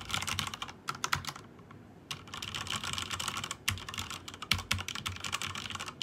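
Fast two-handed typing on an ASUS ROG Strix Scope TKL mechanical keyboard with Cherry MX Red linear switches: a dense run of keystroke clacks, not very loud, that breaks off for a moment about a second and a half in and then carries on.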